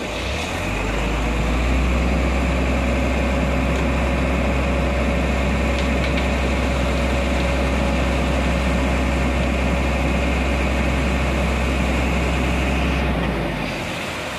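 Ready-mix concrete mixer truck's diesel engine revving up, holding a steady raised speed while the drum turns to discharge concrete down the chute, with a faint steady whine, then dropping back toward idle about a second before the end.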